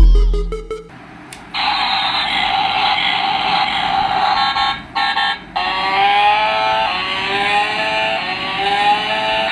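Remote control toy motorcycle running, with a steady whir. From about halfway through, its pitch climbs again and again, like revving up through gears.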